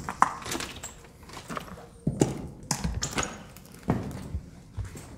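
Footsteps scuffing and knocking on a debris-strewn concrete floor, about one step a second, uneven.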